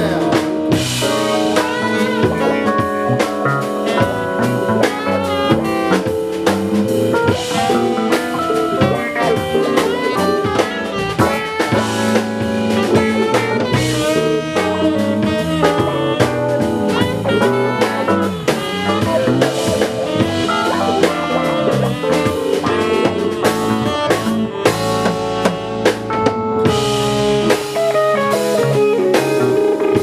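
A live band plays an instrumental passage with no singing: a drum kit keeps time, with rimshots, under guitar.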